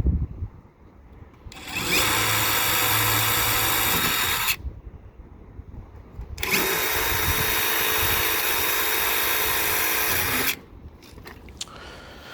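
Power drill running at a steady speed in two runs, about three seconds and then about four seconds long.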